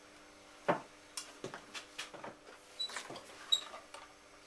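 Pottery and tools being handled on a work surface: a sharp knock about 0.7 s in, then a run of small irregular clicks and taps, over a faint steady hum.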